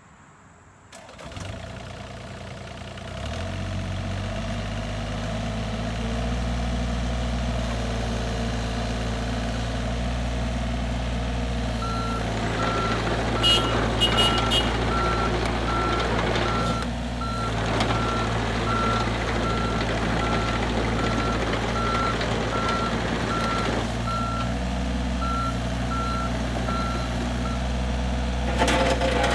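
John Deere 35D mini excavator's three-cylinder diesel engine starting about a second in and settling into a steady run. From about twelve seconds in, its travel alarm beeps evenly, a little more than once a second, while the machine moves on its tracks, with a few metal clanks.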